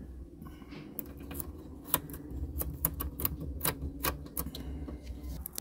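Irregular sharp clicks and ticks of fingers pressing and fitting double-sided tape against the plastic instrument-cluster connector plugs in the dash, over a steady low hum.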